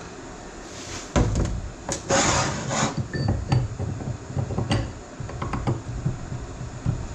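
Metal parts of a tractor power-steering valve being handled and fitted by hand on a workbench: a sharp knock about a second in, a scraping rattle around two seconds in, then scattered light clicks and knocks.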